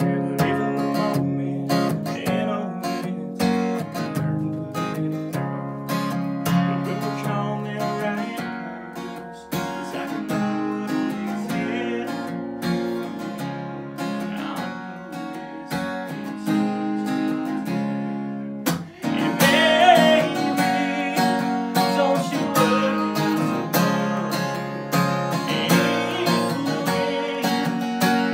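Live acoustic guitar strummed, with a man singing over it; it drops out briefly just before the middle of the song's louder section begins about two-thirds of the way in.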